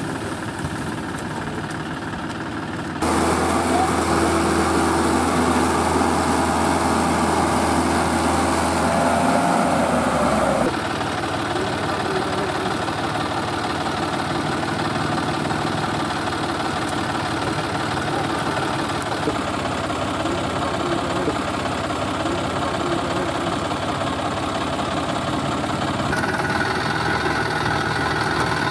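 Tractor diesel engines running under load as a cage-wheeled Mahindra tractor works to free a John Deere tractor stuck in deep mud. The engine sound jumps abruptly three times: about three seconds in, near eleven seconds, and near the end.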